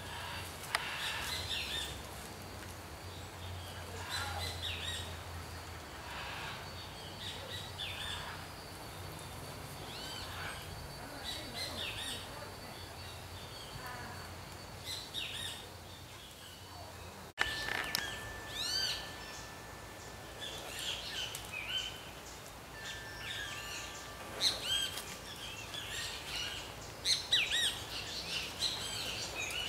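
Wild birds chirping and calling: many short, quick chirps throughout, busier in the second half, with a few thin steady whistled notes after a brief break in the sound about halfway through.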